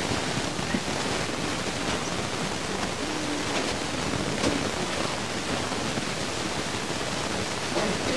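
Steady hiss of home-camcorder recording noise in a quiet room, with a few faint, brief voices.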